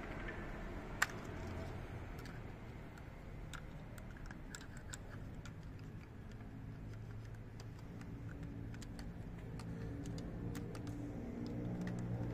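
Small scattered clicks and taps of fuel pump parts being handled and fitted together, one sharper click about a second in, over a low hum that grows louder near the end.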